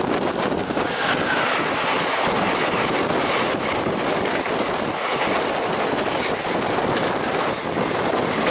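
An express train hauled by an electric locomotive passing close by on the adjacent track, heard from the open door of a moving train: a loud, steady rush with clattering wheels as the locomotive and then its coaches go by.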